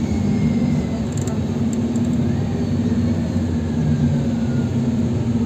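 Inside a NEFAZ 5299 city bus under way: its Cummins ISBe diesel engine runs with a steady low drone, and a faint whine slowly falls in pitch.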